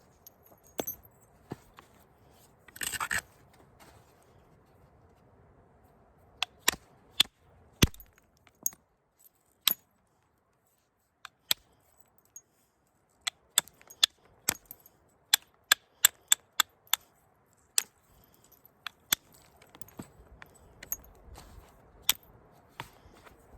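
A weathered elk bone tool striking a stone preform in flintknapping: sharp, separate clicks as flakes come off, scattered at first and then a quicker run of about two strikes a second. A brief scrape about three seconds in.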